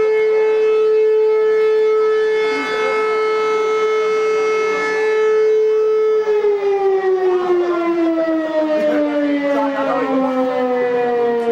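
Civil-defence siren sounding a fire alarm to call out the fire brigade: a loud, steady wail that, about six seconds in, begins to wind down, falling slowly in pitch.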